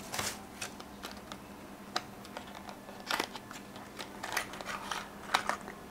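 Plastic wrapping and a small cardboard box being handled and opened: scattered light clicks, taps and short rustles.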